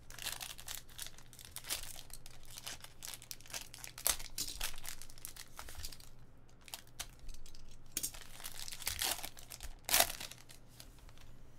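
Foil wrapper of a hockey trading-card pack crinkling and tearing as it is pulled open by hand, in a run of irregular crackles with sharper ones about four and ten seconds in.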